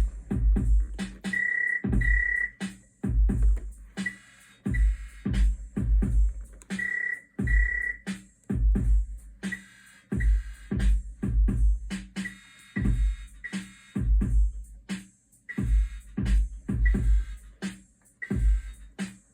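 Eurorack modular drum pattern: the Div Skip rhythm module, clocked by Stolperbeats, triggers a Bitbox sampler. The pattern is deep kick hits in an uneven, skipping rhythm, with clicky percussion and short high beeps.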